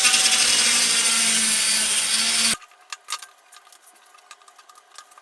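Power saw cutting into an all-aluminium pickleball paddle, a loud steady grinding noise with a faint hum under it. It stops abruptly about halfway through, followed by a few light clicks of handling.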